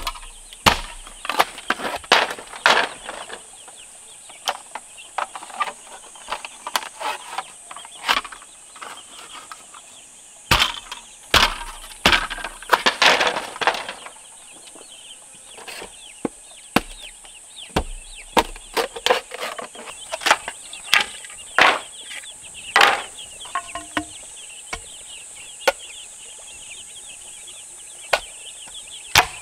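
Chickens clucking, with irregular sharp knocks coming close together throughout and a steady high-pitched hiss behind.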